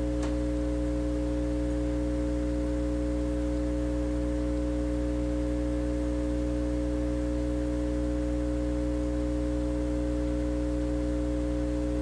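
Hot air rework station running, a steady hum with two even tones, its nozzle blowing heat onto a BGA reball stencil to melt the solder balls. A faint tick comes just after the start.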